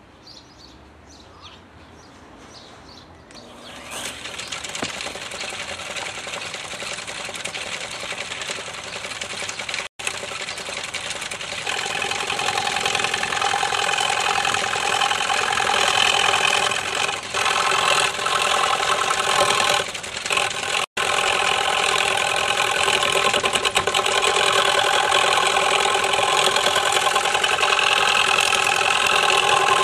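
Homemade wood lathe with bicycle-rim pulleys starting up about four seconds in and running on its electric motor, a steady whine over the hiss of a turning tool cutting the spinning wood. It grows louder partway through.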